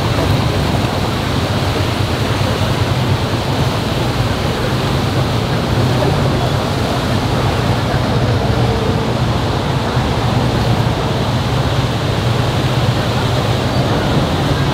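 Steady din of a busy city street: traffic and crowd noise blended into one even roar.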